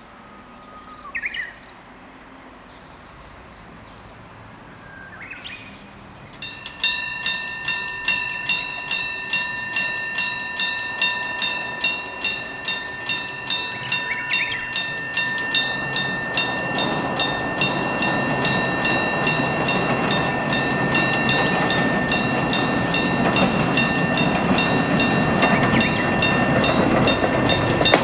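An old-style electric level-crossing bell, a gong struck by an electric hammer, starts ringing about six seconds in and keeps up a steady beat of a little under two strokes a second. From about halfway through, the rumble of an approaching train grows louder beneath the bell.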